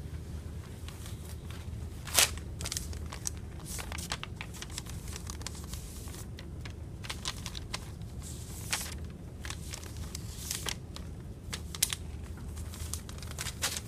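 Sheets of paper rustling and crinkling as they are handled and held up, in scattered crackles with a sharper one about two seconds in and another near the end, over a low steady room hum.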